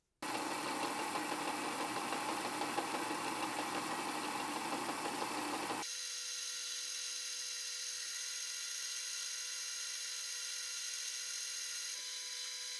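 A loud, dense machine noise for about the first six seconds, then a sharp cut to a metal lathe running steadily as a turning tool cuts a metal rod. The lathe gives a steady whine with a high ringing hum.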